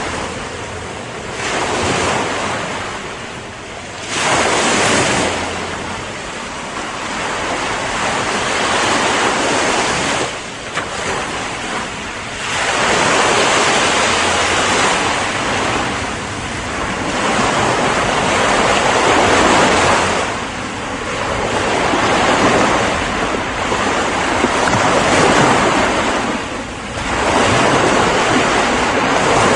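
Ocean waves breaking and washing on the shore in a continuous rush, swelling and easing every few seconds as each wave comes in.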